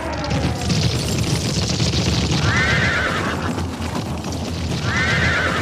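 Recorded battle sound effects: a dense din with a low rumble, and a horse whinnying twice, about two and a half seconds in and again near the end.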